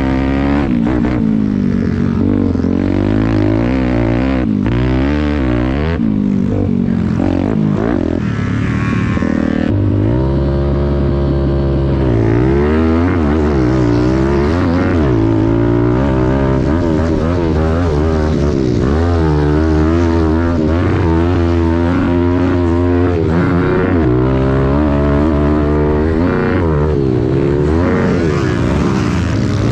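Pit bike's small single-cylinder four-stroke engine being ridden hard, revving up and down in pitch every second or so as the throttle is worked on and off, with one longer steady pull about ten seconds in.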